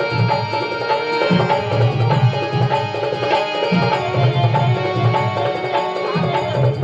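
Instrumental passage of a devotional bhajan performed live: hand drums keep a steady rhythm under sustained melody notes from a pitched instrument.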